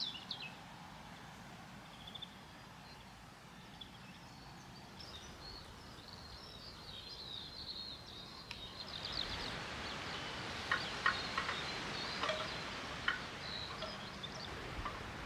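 Small birds singing and chirping in a spring outdoor ambience, with a steady background hiss that grows louder about halfway through.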